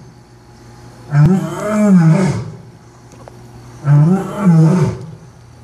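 Lion roaring: two loud calls about two and a half seconds apart, each about a second long and wavering up and down in pitch.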